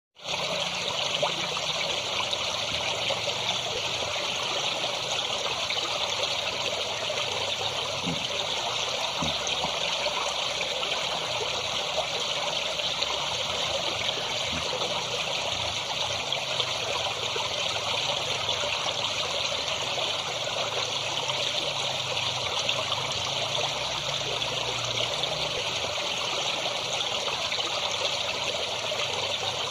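Stream water flowing and trickling steadily, an even splashing hiss with no let-up.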